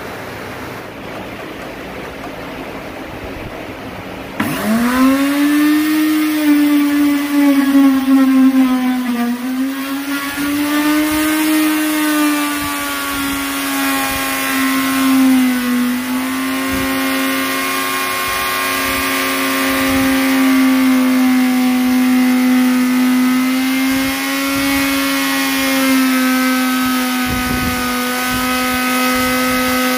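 Electric plunge router switched on about four seconds in, its motor spinning up fast to a steady high hum and then running as the bit cuts a circular recess into a wooden table top. The pitch sags briefly a few times as the bit bites into the wood.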